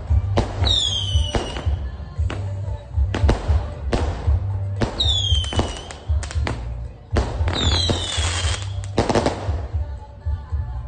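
A 100-shot firework cake firing in quick succession: sharp launch bangs and bursting shells, with three falling whistles among them.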